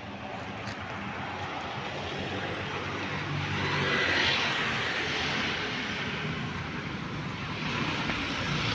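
Road traffic: vehicles passing by with a steady hiss of tyres and engines, swelling about four seconds in and again near the end as cars go past.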